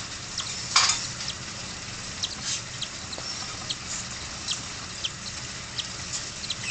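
Cockatiel chicks giving faint, high, short peeps over and over at an uneven pace, with one louder brief scratchy rustle just under a second in.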